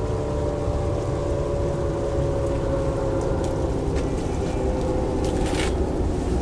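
An engine running steadily under a low rumble, its pitch slowly falling, with a few light clicks near the end.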